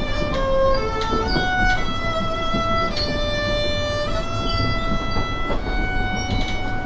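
Solo violin playing a melody in long held notes, changing pitch about once a second, over the steady low rumble of the subway car.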